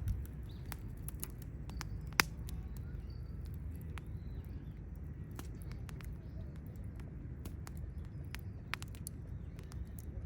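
Wood fire crackling in a folding stainless fire stand: irregular small pops and snaps over a low steady rumble, with one sharp, loud pop about two seconds in.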